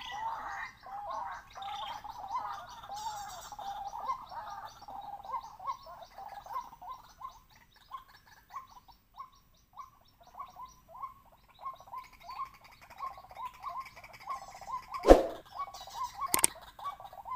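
White-breasted waterhen calling: a long run of short, repeated notes that quickens to about three a second in the second half. A sharp loud click comes about fifteen seconds in, and a second one a little over a second later.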